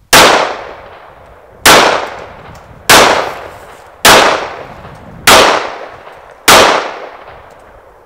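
Six handgun shots fired at a steady pace, a little over a second apart, each shot dying away over about a second.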